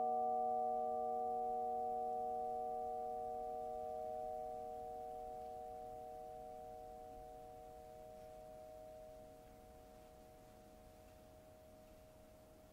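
Bowed vibraphone bars ringing on as a sustained chord of several pure tones that slowly fades away.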